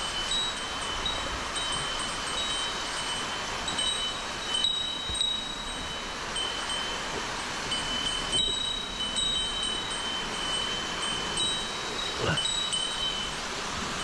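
Insects trilling: several thin, steady high-pitched trills at different pitches, each holding for a second or more, then breaking off and starting again, over a steady rushing noise. A soft knock sounds near the end.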